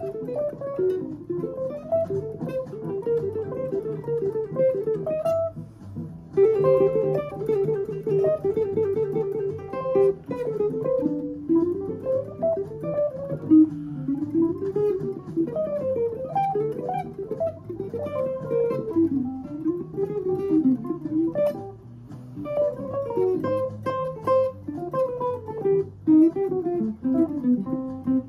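Hollow-body electric guitar playing a fast single-note bebop jazz solo: long runs of notes climbing and falling, with short breaks about six seconds in and again about twenty-two seconds in.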